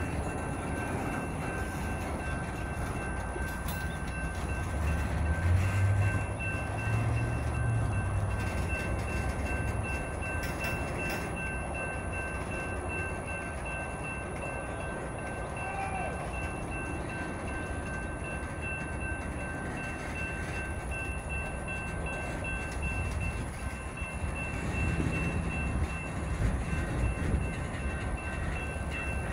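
Freight train of boxcars rolling slowly past: a steady rumble and rattle of steel wheels on the rails, heavier for a few seconds twice, with a thin steady high whine above it.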